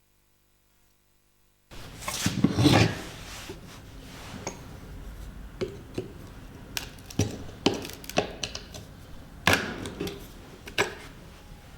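Silence, then about two seconds in a loud scrape, followed by a string of separate knocks and clicks of a small rusty metal vise and tools being handled on a workbench.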